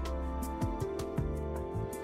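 Instrumental background music: held notes over a low line that changes note about every half second, with light high-pitched percussive ticks.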